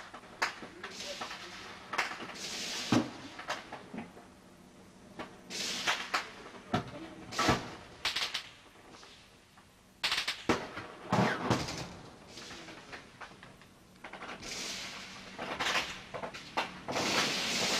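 Gunfire: scattered single shots and short bursts, each trailing off in an echo, with several louder reports spread through.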